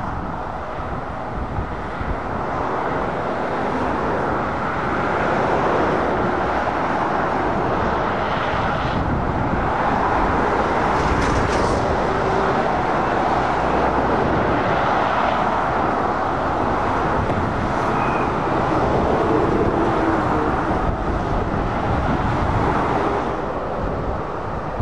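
Steady motorway traffic noise: a continuous rush of tyres and diesel engines as heavy lorries and cars pass.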